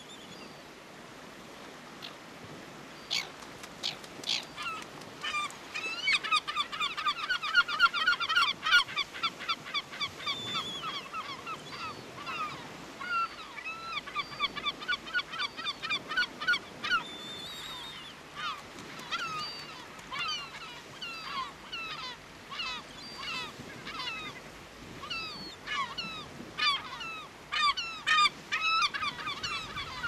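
Caspian terns calling: a few sharp clicks, then a fast run of short, harsh repeated notes, several a second, giving way after the middle to more spaced calls that fall in pitch.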